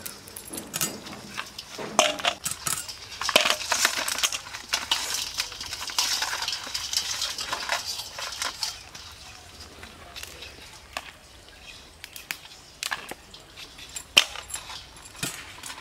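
Kitchen utensils and dishes clinking, tapping and scraping during cooking, with a busier stretch of scraping and rattling from about three to eight seconds in, then scattered single taps.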